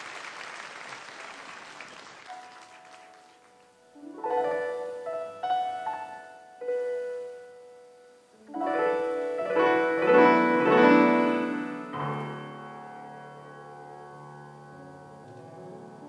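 Audience applause dying away over the first few seconds, then a solo piano begins with slow phrases of ringing notes. The playing swells about halfway through and settles into held low chords near the end.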